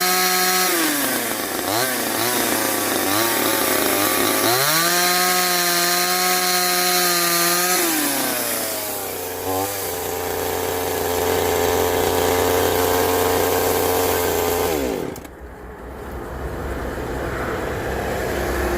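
Chainsaw engine revving and dropping back several times, held at high revs for about three seconds, then running lower and steadier before winding down and stopping about fifteen seconds in.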